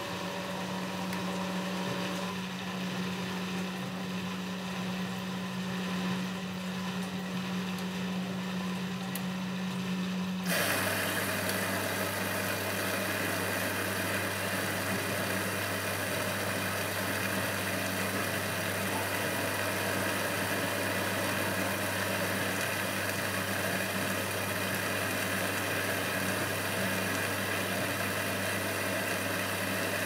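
Eudora Supernova 1002 front-loading washing machine running in the wash, its drum turning a large load of laundry with a steady mechanical hum. About ten seconds in the sound changes suddenly: a lower hum and a louder hiss come in and continue steadily.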